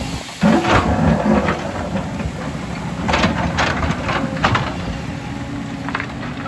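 JCB tracked excavator at work: the diesel engine runs with a steady low rumble while the bucket digs into rocky soil, giving bursts of scraping and crunching stone, the loudest about half a second in, more around three to four seconds, and one near the end.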